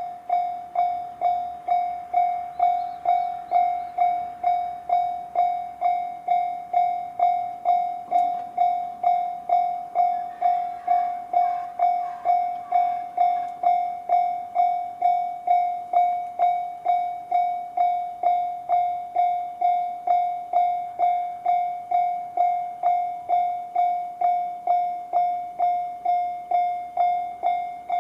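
Japanese railway level-crossing alarm in the JR standard electronic tone, starting abruptly and striking one ringing note steadily, nearly two strikes a second. Under it, about ten seconds in, the faint running noise of a JR 211-series electric train passing through the crossing rises and fades.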